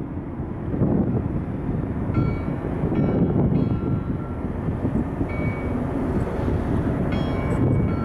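Bell buoy's bell ringing in about six uneven strikes as the buoy rocks on the waves, each strike a clear metallic ring that fades quickly. Under it, a loud steady low rumble.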